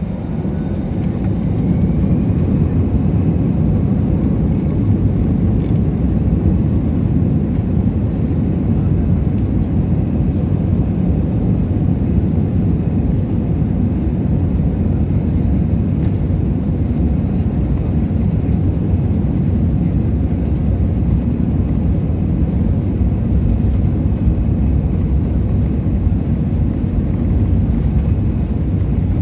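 Airplane engine and airflow rumble heard from inside the passenger cabin: a steady low roar that grows louder over the first couple of seconds, with a faint rising whine, then holds level.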